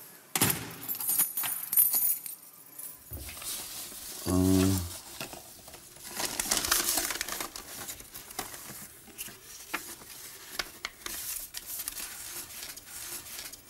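Metal clanking of a prison cell door's lock and steel bolts for about two seconds, followed about four seconds in by a short low buzz. After that come rustling and small clinking handling sounds.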